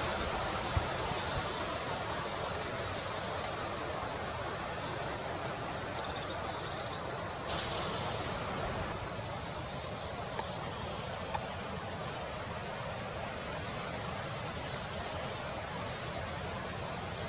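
Steady outdoor background hiss with faint, short, high-pitched chirps and a few small clicks scattered through it.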